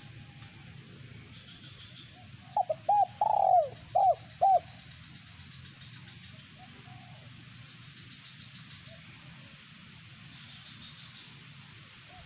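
Decoy dove cooing: a quick run of about five short, arched coos, one of them drawn out, about two and a half seconds in, over about two seconds.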